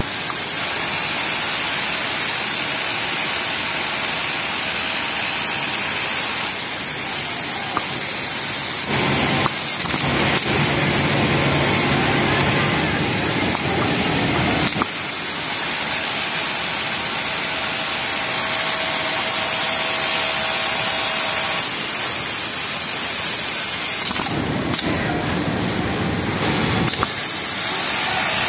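Yamato flatlock industrial sewing machine running as a T-shirt bottom hem is stitched, over a steady din of hiss. The sound grows louder for stretches of a few seconds around the middle and near the end.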